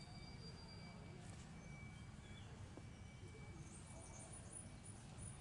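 Faint forest ambience: a low rumble with a thin, steady high whine running through it, and a quick run of very high, thin chirps starting about two thirds of the way in.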